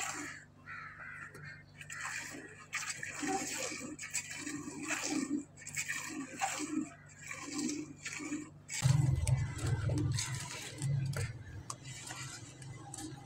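Hand-milking into a steel pot: rhythmic squirts of milk hitting the metal, about two a second. About nine seconds in, a louder low rumbling noise takes over.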